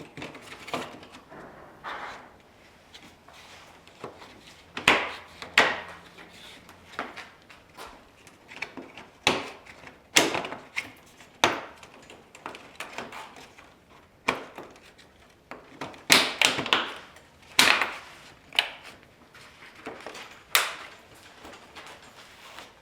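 Plastic grille and bumper trim pieces being handled and pressed into place on a car's front end: irregular sharp clicks and knocks, loudest bunches about 5, 10 and 16 seconds in.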